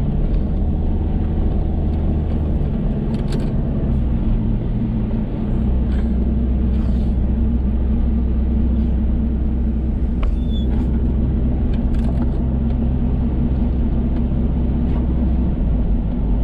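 Car engine and tyre noise heard from inside the cabin while driving: a steady low hum that shifts in pitch about five seconds in.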